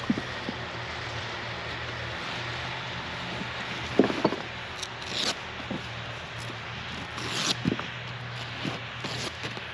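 A fabric tent carry bag being handled and opened on a wooden deck: rustling, a couple of short zipper-like rasps and a few light knocks against the boards.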